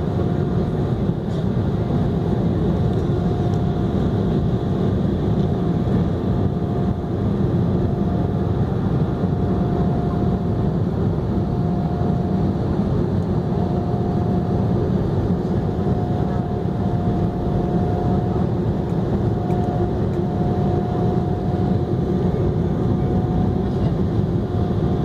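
Jet airliner engine and airflow noise heard from inside the cabin during the climb after takeoff: a steady, even roar with a faint high hum held under it.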